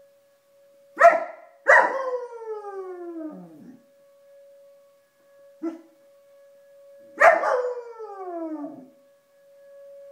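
German shepherd howling at a storm warning siren: a sharp bark about a second in, then a long howl that slides down in pitch, a short yip, and a second bark-like onset falling into another downward-sliding howl about seven seconds in. The siren's steady tone holds underneath.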